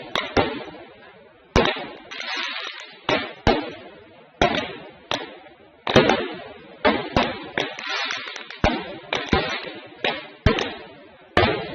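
Fireworks going off: a string of sharp bangs at irregular spacing, often one or two a second, each trailing off, with crackling between them.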